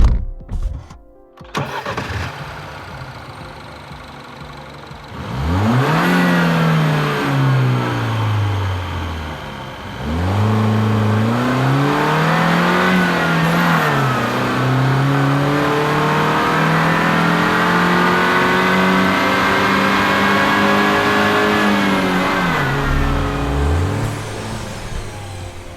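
A few clicks and a thunk, then a BMW 114i E87's four-cylinder petrol engine runs and accelerates. It rises in pitch twice, with a drop between the pulls like a gear change, holds a steady higher note for several seconds, then falls back, with a short rev blip near the end.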